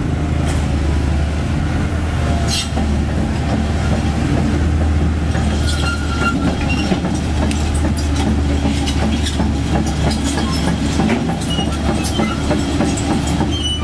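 Komatsu PC130F crawler excavator travelling on its steel tracks over asphalt: a steady low diesel engine drone under the rapid clanking and clicking of the track shoes, with a few short squeals from the tracks.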